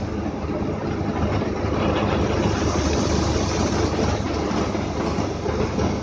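Combine harvester running while unloading wheat grain through its unloading auger into a trailer: a steady, loud mechanical din with a deep engine hum.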